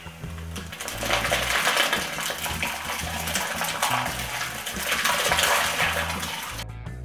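Fermenting banana wine mash, thick with pulp and foam, pouring from a plastic bucket through a plastic funnel into a glass demijohn: a steady splashing gush that swells and eases, then cuts off abruptly near the end.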